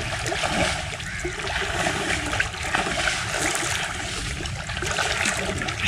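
Shallow river water splashing and sloshing around a person's legs as he wades through it, over the steady rush of the current.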